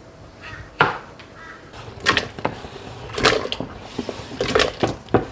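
A string of short, sharp knocks from potatoes being cut on a wooden chopping board and pushed off the board into a pot of water.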